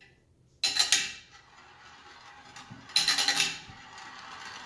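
Marbles rolling and clattering through a plastic marble run and its funnel piece: two rattling bursts about two seconds apart, with quieter rolling between.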